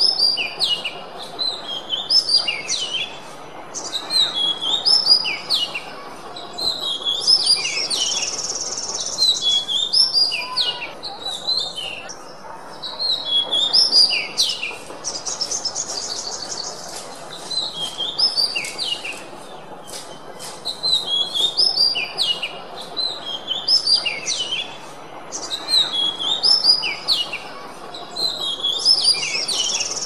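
Oriental magpie-robin (kacer) singing: repeated phrases of short, sharp whistled notes, broken every several seconds by a fast rattling trill.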